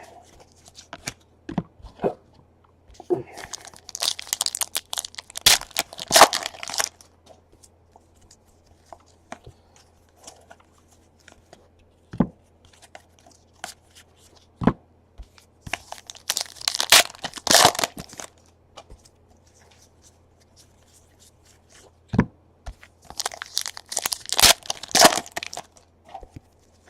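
Trading card pack wrappers being torn open and crinkled, in three rough bursts, with short sharp clicks of cards being handled in between.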